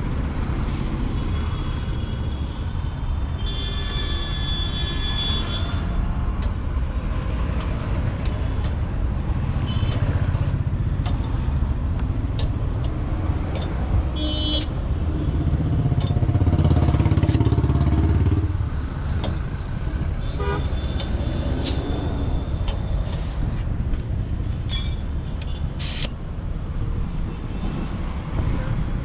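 Roadside traffic running steadily, with a vehicle horn honking about four seconds in. A heavy vehicle's engine passes close, swelling loudest about sixteen to eighteen seconds in.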